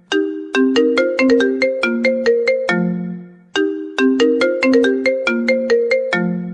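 Mobile phone ringtone melody: a short tune of quick, decaying pitched notes that repeats about every three and a half seconds, starting again twice.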